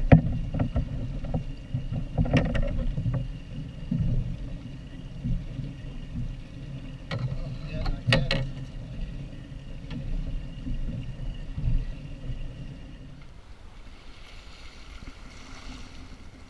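Wind buffeting the microphone on an open boat, with water slapping and scattered sharp clicks and knocks, the clearest about two and eight seconds in. Near the end the rumble drops away, leaving a softer hiss of water along a sailing schooner's bow.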